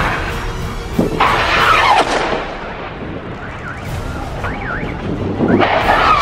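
Rockets launching: a sharp crack about a second in, then a loud rushing whoosh that falls in pitch, and another whoosh near the end.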